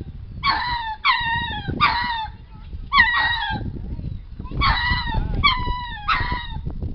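Ring-tailed lemurs howling: short, high yelping cries, each falling in pitch, in a run of three, then a single cry, then another run of three.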